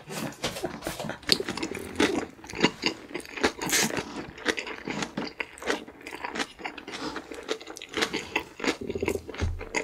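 Close-miked chewing of a mouthful of food: a dense, irregular run of short wet mouth clicks and crunches.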